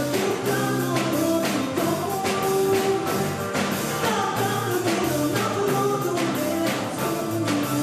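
Live band music with a woman singing over a steady beat of about two strokes a second, with a bowed Pontic lyra among the instruments.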